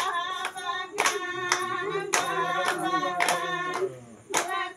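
A group of voices singing together in a folk song, kept in time by sharp handclaps about twice a second. The singing and clapping drop away for a moment near the end, then pick up again.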